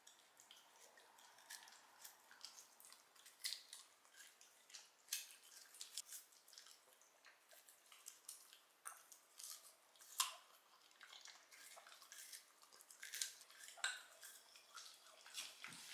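Small Shiba Inu (mame-shiba) biting and chewing pieces of persimmon from a hand. The mouth and teeth make a run of irregular quick clicks and smacks, a few louder than the rest.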